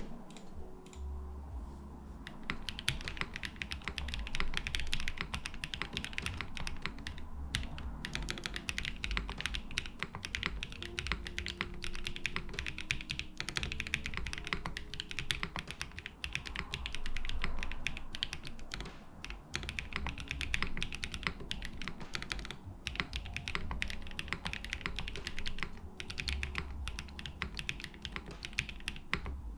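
Continuous typing on a mechanical keyboard with a polycarbonate plate, plate and bottom foam, lubed JWK Endless Summer linear switches and GMK keycaps: a dense run of keystroke clicks that starts about two seconds in, with quiet background music underneath.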